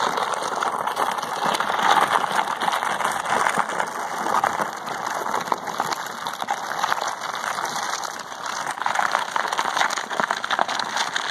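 Heavy plastic trash can, loaded with crushed asphalt and debris, being pushed along asphalt pavement: its base scrapes and grinds with a steady gritty noise full of small crackles.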